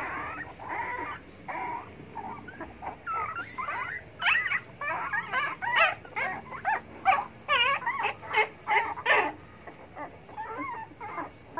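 Very young puppies whimpering: a run of short, high, wavering cries, coming thick and fast from about four seconds in until just after nine, and sparser near the end.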